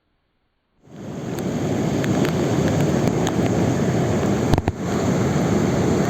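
Heavy rain, a dense steady hiss with many sharp drop ticks, cutting in about a second in, with a brief low thump about four and a half seconds in.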